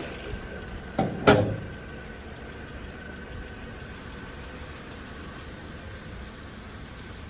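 Car engine running in the engine bay, with two sharp knocks about a second in, the second one louder, after which a quieter steady hiss remains.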